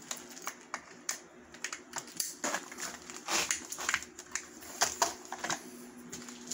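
Irregular clicks, knocks and rustles of a coiled air hose and its brass quick-connect fitting being handled and coupled to a Ridgid framing nailer, over a faint steady hum.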